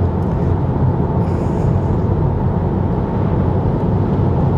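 Steady road and tyre noise, a low rumble, heard inside the cabin of a Tesla Model 3 electric car driving at speed.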